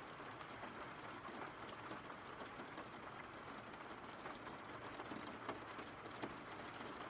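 Faint, steady rain: an even hiss with a few soft drop ticks scattered through it.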